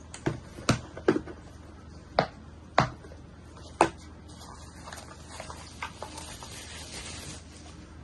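A plastic hard case being handled and snapped open: several sharp clicks and knocks in the first four seconds. These are followed by a few seconds of bubble wrap rustling as a flashlight is unwrapped from it.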